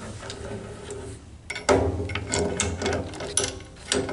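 Metal clicks and knocks as the steel drive arm of a hydraulic chain pipe wrench is handled and fitted onto the wrench, a quick run of clicks starting about a second and a half in.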